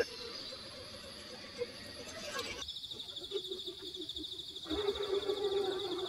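Brushless electric motor of a 1/10-scale RC crawler whining, its pitch wavering with the throttle and loudest near the end. A high, fast-pulsing tone joins about halfway.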